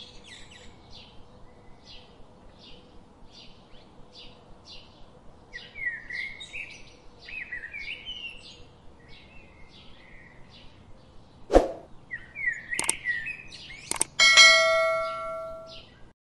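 Small birds chirping in a run of short, repeated chirps. Late on comes a whoosh and a click, then a bright bell ding that rings on and fades: a subscribe-button sound effect.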